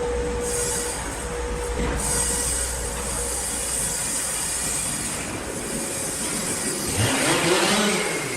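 Large sawmill machinery running with steady mechanical noise and a thin steady tone that fades about a second in; about seven seconds in a louder, rougher burst rises with a wavering lower tone, then eases off near the end.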